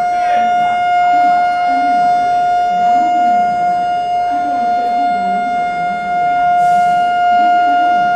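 Train horn sounding one long, unbroken steady note, given as the train gets its departure signal and is about to pull out.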